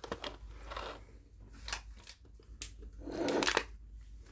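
Crackling and crunching of a chocolate bar being handled and eaten close to the microphone, a few sharp crackles with a louder burst of crunching about three seconds in.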